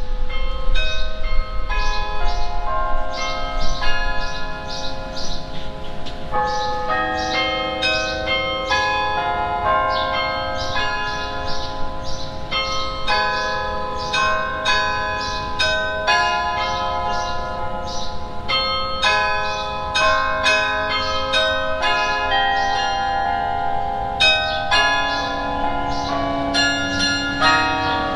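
Carillon playing a tune: tuned bronze bells struck in quick succession, melody notes and chords overlapping as each bell rings on. A low rumble sits under the first few seconds.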